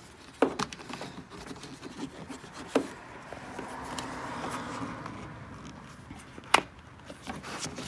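Rubber door-opening weatherstrip on a 2005 Ford Escape being pressed and worked onto the body flange by hand: soft rubbing and scraping, with a few sharp clicks, the loudest about two-thirds of the way in.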